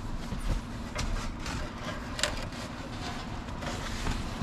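Foam bed cushions being lifted and shifted on a wooden slatted bed frame: rustling handling noise with a few light knocks against the wood.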